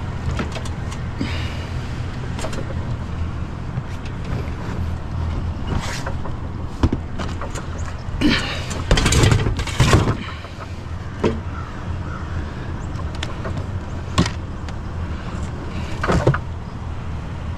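Vehicle engine idling steadily, with scattered knocks and clatter of items being handled over it; the clatter is loudest about eight to ten seconds in.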